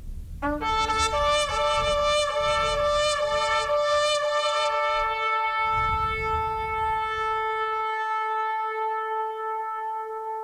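Loud sustained horn blasts, several notes sounding together with a wavering pitch, over a low rumble. The rumble stops near the end, leaving one held note ringing on.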